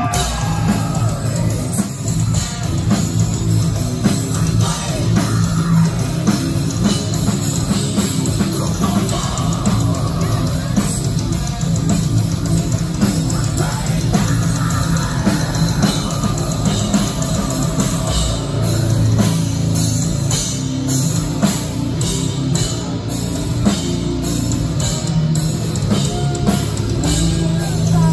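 Metal band playing live at full volume: distorted guitars and bass over rapid drum hits, heard from within the crowd.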